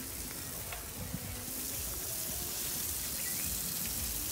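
Water spraying with a steady hiss that comes up about a second and a half in.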